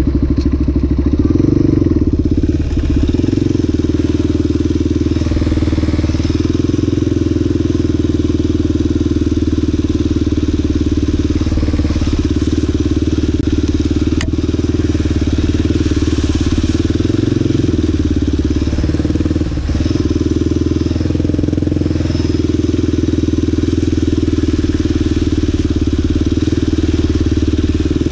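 ATV engine running under way from on board the quad, a steady note that shifts a little with the throttle and eases off briefly about 19 seconds in. A single sharp click about 14 seconds in.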